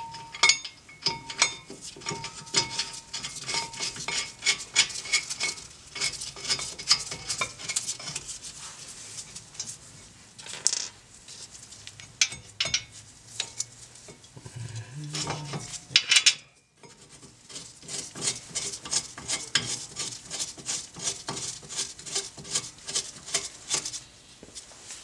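Many light metallic clicks and clinks as a steel brake caliper mounting bracket is set over the rotor and its bolts are run in, with a brief louder clatter about two-thirds of the way through.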